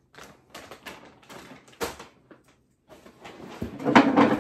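Plastic packaging and grocery bags crinkling and rustling in short irregular bursts, loudest near the end as a bag is rummaged through.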